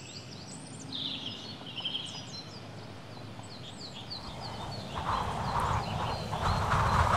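Birds chirping and calling, then from about four seconds in a rushing storm noise of wind swells steadily louder as a thunderstorm approaches.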